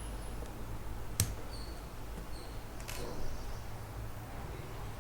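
Small plastic-and-metal clicks from a SIM ejector pin being pushed into a smartphone's SIM tray hole to release the tray: one sharp click about a second in and a softer one near three seconds.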